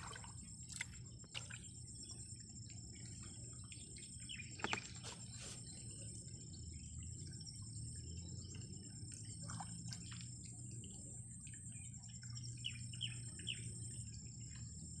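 Faint outdoor ambience: birds chirping now and then over a steady high-pitched insect drone and a low rumble.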